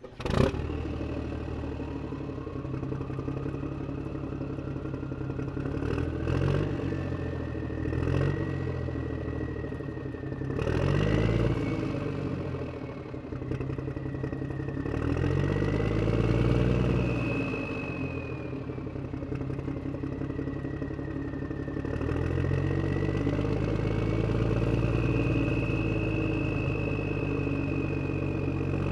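A vehicle engine catches abruptly and idles, blipped several times so its pitch rises and falls. From about three quarters of the way in it holds at a slightly higher, steady speed.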